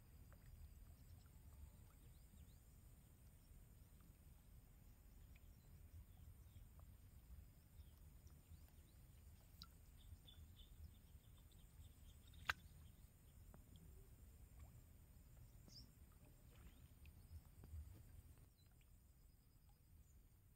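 Near silence: a faint low rumble, with one sharp click about halfway through.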